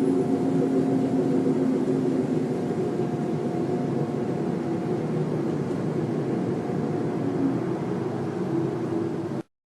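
Steady, loud droning hum of unknown origin, several held low tones over a rushing noise, the kind of sound posted as the 2012 'strange sounds' heard in the sky. It cuts off suddenly near the end.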